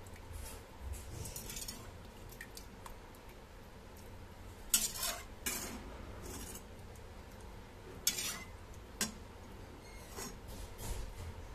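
Perforated steel skimmer scraping and clinking in a kadhai as boiled soya chunks are scooped out of their water, in short scrapes and knocks with the loudest clatters about five seconds in and again around eight seconds in.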